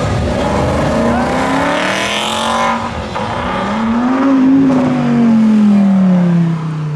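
Sports car engines accelerating along the road. The engine note climbs and falls several times, and the loudest car rises to a peak about four to five seconds in, then drops away as it passes.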